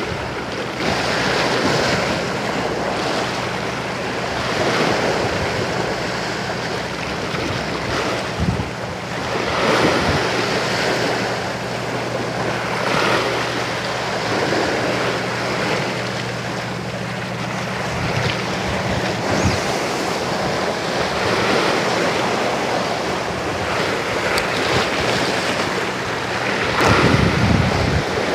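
Sea waves surging and washing in every few seconds, with wind buffeting the microphone. A steady low hum runs under it through much of the middle.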